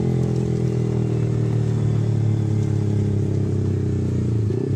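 Yamaha R15 V3's 155cc single-cylinder engine running through an aftermarket R9 racing exhaust while the bike is ridden, holding a nearly steady engine speed.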